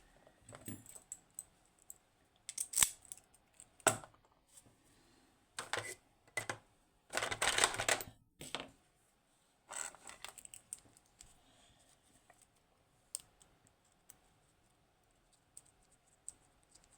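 Small metal lock parts being handled during disassembly of a Securemme K2 dimple lock: scattered clicks and short scrapes, with a longer burst of noise lasting about a second around the middle.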